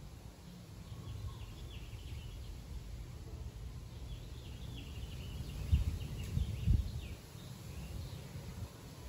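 Outdoor background of birds chirping faintly over a steady low rumble, with two dull thumps about six and seven seconds in.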